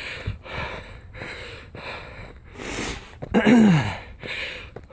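A man panting hard while hiking uphill: quick, rhythmic breaths, a little under two a second, with one voiced exhale falling in pitch about three and a half seconds in. He is short of breath from the steep climb, his heart rate up around 150.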